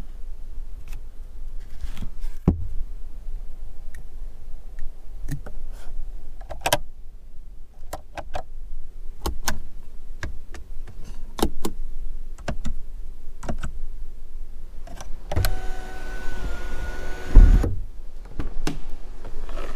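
Sharp plastic clicks and taps of car interior trim covers being opened and closed. Near the end an electric sunroof shade motor runs steadily for about two and a half seconds, with a thump as it stops.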